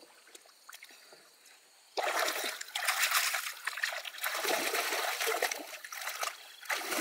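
Water splashing, starting suddenly about two seconds in after a quiet stretch with a few faint ticks, then going on unevenly, louder and softer.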